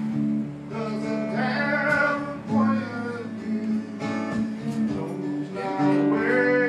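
Guitar music with a singing voice over held chords.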